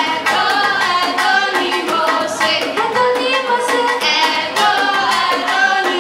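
An Edo traditional song: a girl singing a melody over a steady percussion beat.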